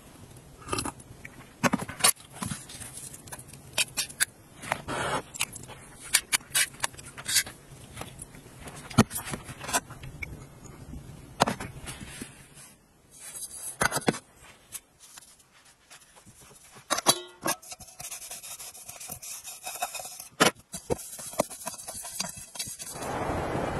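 A metal spoon clinking and scraping against a stainless steel plate and bowl as a meal is eaten: many short sharp clinks at irregular intervals, some ringing briefly.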